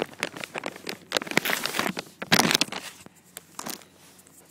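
Plastic snack bag crinkling as it is handled to get a treat out, in a run of rustles over the first three seconds that then dies down.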